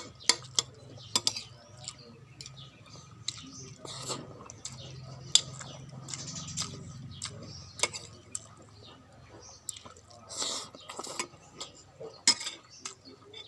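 Utensils clinking and tapping against a bowl and plate while eating soup: many sharp, irregular clicks. A faint low hum runs underneath.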